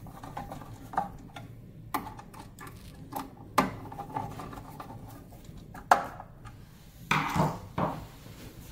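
Screwdriver working the screws of the analyzer's metal chamber bracket: scattered light clicks and knocks of metal on metal, with a louder cluster of knocks near the end.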